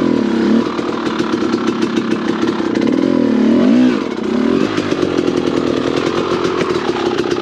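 Dirt bike engine running hard under throttle, its revs swinging up and down several times, most sharply about three to four seconds in.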